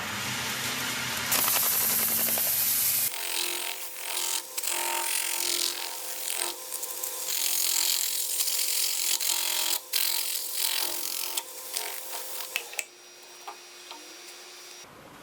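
Wood lathe running while a tool scrapes and cuts a spinning wooden bowl: a continuous rough hiss with many short scratchy catches over a steady motor hum. The sound shifts abruptly about three seconds in and becomes quieter near the end.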